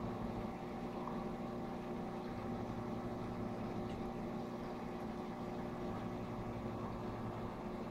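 Steady hum of a Red Sea Max 250 reef aquarium's running equipment (its pumps and cooling fans), with an even low hiss.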